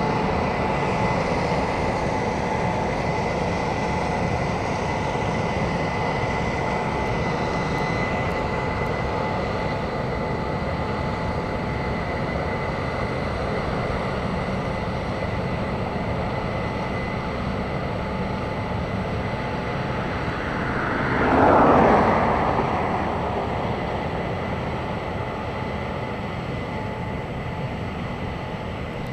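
Combine harvesters running steadily as they harvest corn, a continuous drone with a faint steady whine. About two-thirds of the way through, a louder rush swells and fades within a second or two.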